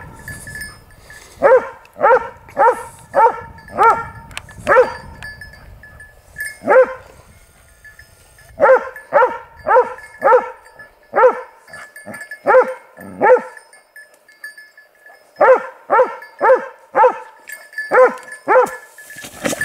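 Hunting dog barking at bay in runs of several quick barks with short breaks between, holding a wild boar up at the foot of a tree.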